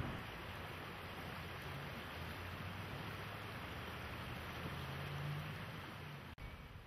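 Steady rush of river water flowing past the bank and rocks, mixed with wind on the microphone, under a faint low hum that grows a little about five seconds in. The sound drops out abruptly near the end.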